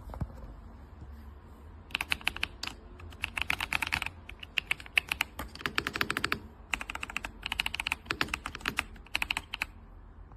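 Typing on the RK Royal Kludge R98 Pro mechanical keyboard: fast runs of key clicks start about two seconds in and come in several bursts with short pauses, stopping just before the end.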